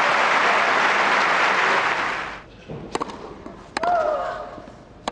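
Tennis crowd applauding, dying away a little over two seconds in. Then three sharp single knocks, about a second apart, typical of a tennis ball bounced on the hard court, one followed by a brief squeak.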